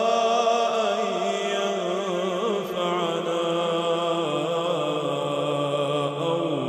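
A man reciting the Quran in melodic tajweed, drawing out long, ornamented notes whose pitch slowly sinks.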